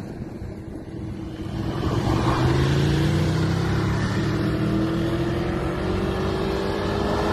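Sport motorcycle engine accelerating away, its pitch climbing steadily, getting louder about two seconds in and then holding.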